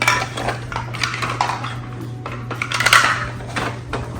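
Small hard plastic toy pieces clicking and clattering as they are handled and set down on a playset, in irregular knocks with a busier flurry about three seconds in.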